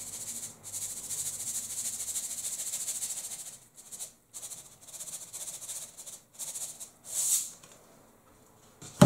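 Seasoning rattling in a plastic shaker as it is shaken over food: a continuous hissing rattle for about three and a half seconds, then several short shakes, the last one loudest.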